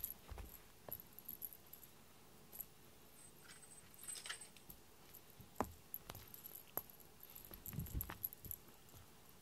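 Faint clinking of a cat's metal collar name tag now and then, with scattered small taps and soft bumps as the cat moves about.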